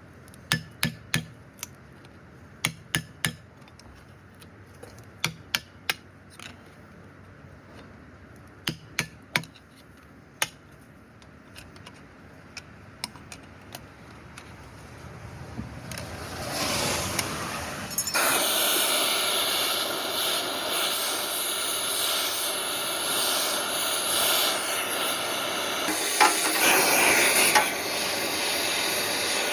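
Hammer blows on metal, single and in small clusters a second or more apart, during work on a wheeled excavator's front axle. About halfway through, a loud steady rushing mechanical noise builds up and takes over.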